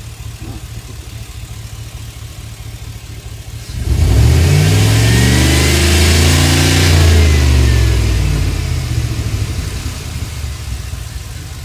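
Chevrolet Express van's V8 engine idling, then revved up sharply about four seconds in, held for a few seconds and let fall back toward idle.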